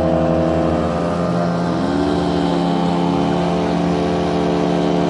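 Motorboat engine running; its note drops about a second in, comes up a little and then holds steady.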